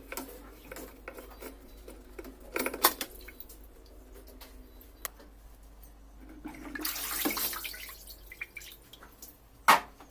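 Scattered clinks, clicks and knocks of tools and parts being handled while a top-load washing machine is taken apart. Partway through, a rushing hiss lasts about a second and a half, and a single sharp knock comes near the end.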